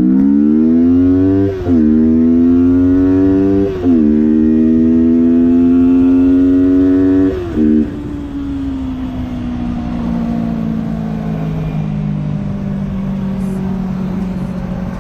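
Yamaha MT-03's 321 cc parallel-twin engine under hard acceleration from a standstill: the revs climb, then drop sharply at three upshifts about one and a half, four and seven and a half seconds in. After the last shift it settles into a steadier, slowly falling note while cruising.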